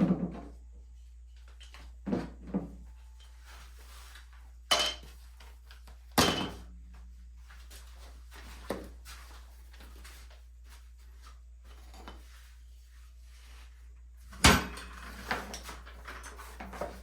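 Scattered sharp knocks and clunks of gear being handled and set down, a few seconds apart, then a busier stretch of clattering near the end.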